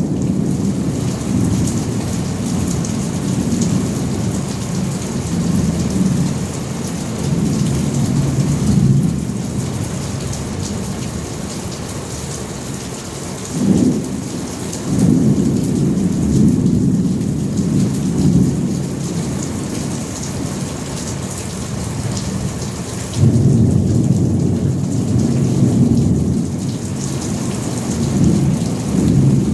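Thunderstorm: steady heavy rain with thunder rumbling in long rolling waves. A short, sharper thunderclap comes about 14 seconds in, and a louder rumble breaks in suddenly about 23 seconds in.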